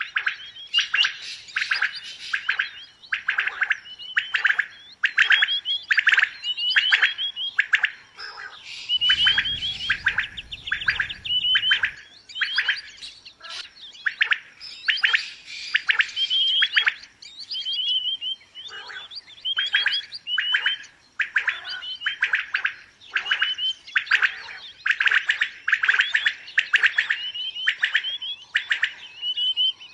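Quail calling over and over in short, rapid chirping phrases, roughly one a second. A low rumble sits under the calls for a few seconds, from about nine seconds in.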